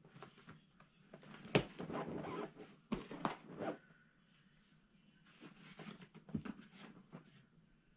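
Hands working a car seat cover over its seat: irregular rustling and scratching with scattered sharp clicks, the loudest about one and a half seconds and three seconds in.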